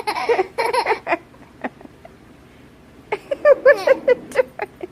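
A young child's excited vocalizing and laughter in two bursts, one at the start and another about three seconds in.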